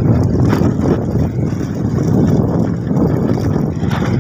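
Motorcycle engine running while riding, with wind noise on the microphone.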